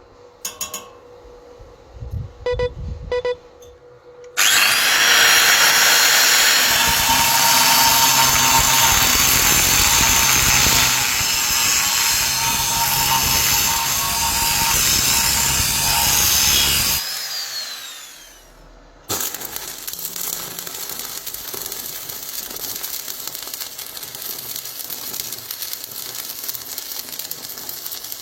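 A few ringing clinks of metal parts, then a power grinder running with a steady whine for about thirteen seconds and winding down. After a short pause, the steady crackling hiss of a welding arc.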